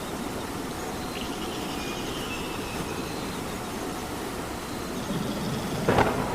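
Steady rain falling, an even hiss. About six seconds in, a short sharp knock or splash stands out above it.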